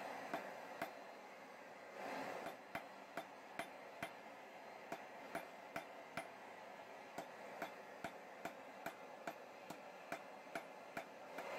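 Hand hammer striking a hot steel bar on an anvil in quick, light, even blows, about two to three a second, with a short pause about a second in.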